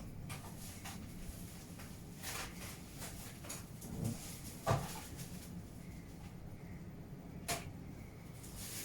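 Scattered knocks and clunks of things being handled and moved about, the sharpest about four and a half seconds in and another near the end, over a steady low hum.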